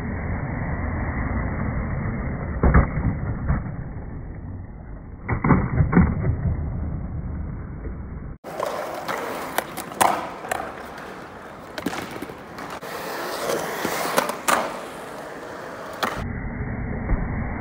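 Skateboard wheels rolling over concrete bowl transitions, a steady rumble broken by several sharp clacks and thuds of the board.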